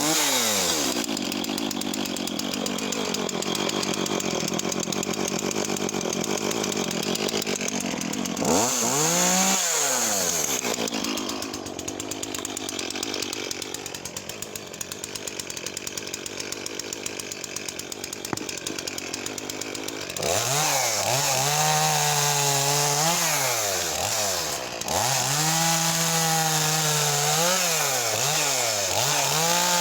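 Makita DCS4610 45 cc two-stroke chainsaw running at high throttle while cutting discs from a downed log: the engine note drops and stays low under load, then in the later part repeatedly dips and climbs again as the chain bites and frees in the wood.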